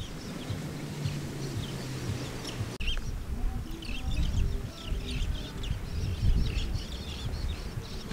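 Many birds chirping and calling in short, quick notes, over a low gusting rumble of wind on the microphone.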